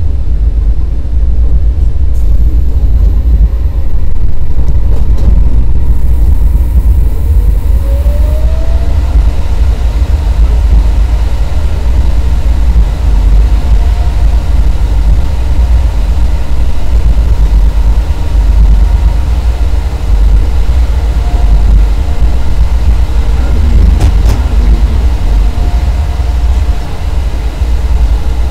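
Inside the cab of a moving Class 189 electric locomotive: a steady, heavy low rumble of the run, with a tone that rises in pitch about eight seconds in and a single sharp click near the end.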